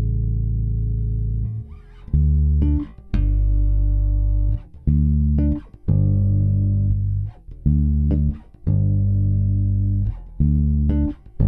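Fender Squier Jaguar bass guitar playing a bass line: one long held note, then a string of notes at changing pitches, each held for about a second and stopped short with a brief silence before the next.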